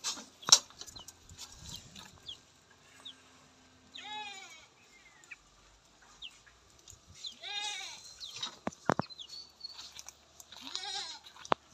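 A goat bleating three times, each a short wavering bleat about three seconds apart. A few sharp knocks and clicks in between.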